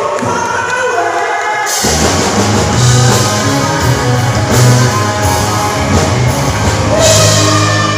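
Loud rock music: a full band with guitars and drums comes in about two seconds in, after a quieter sung passage.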